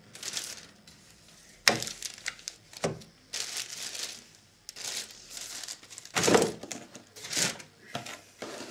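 Clear plastic packaging bags crinkling and rustling as they are handled, in irregular bursts with a few sharper crackles.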